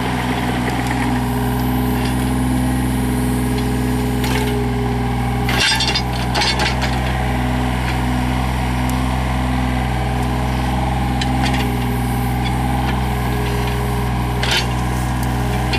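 The 2005 Yanmar VIO35-3 mini excavator's three-cylinder Yanmar diesel running steadily, with scattered metallic clanks and knocks, a sharper one about six seconds in and another near the end.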